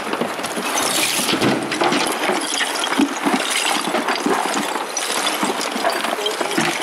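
Broken roof-tile and brick rubble clinking and scraping as it is picked up and sorted by hand, with many small knocks throughout.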